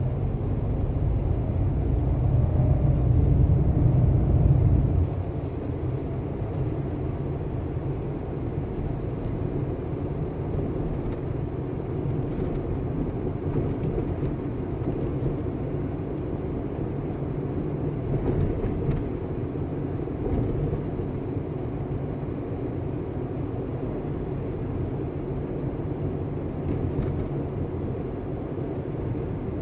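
Car driving on city streets: a steady low rumble of engine and road noise, louder for the first five seconds or so.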